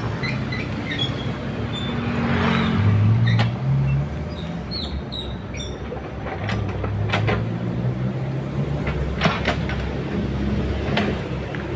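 Excavator at work: its diesel engine running under load, rising in pitch for a couple of seconds early on, with sharp metallic clanks and knocks from the machine's tracks and bucket.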